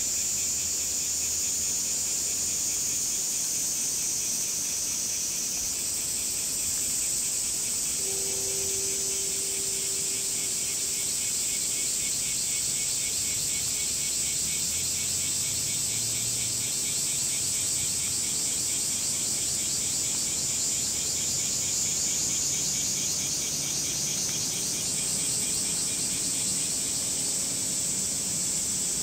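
Several cicadas calling at once in a steady chorus. One shrill call sits high, and another pulses in a fast, even rhythm. A faint steady hiss lies beneath, and a brief low tone sounds about eight seconds in.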